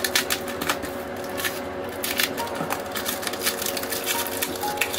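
Crinkling plastic and scraping cardboard as a sealed black plastic bag is pulled out of a small cardboard box, in many short, sharp crackles, over faint background music.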